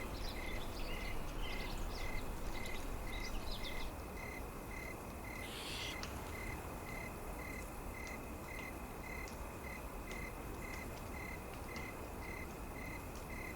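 Nature ambience: a cricket chirping steadily, about three chirps a second, over a low background hiss. Birds call briefly during the first four seconds, and a short rustling hiss comes about six seconds in.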